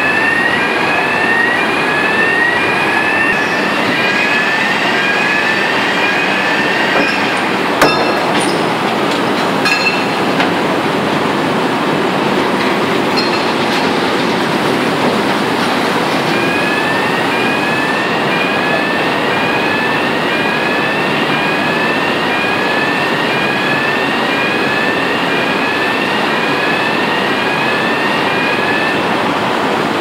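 Steady loud roar of a blast furnace tap hole blowing flame and molten iron during casting. A repeating rising two-tone electronic warning chirp, about one and a half a second, sounds over it for the first quarter and again from about halfway on, with a couple of sharp clicks in between.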